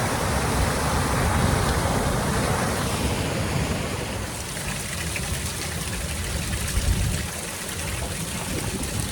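Steady rushing of river current around a kayak, with a low rumble that eases after about three seconds.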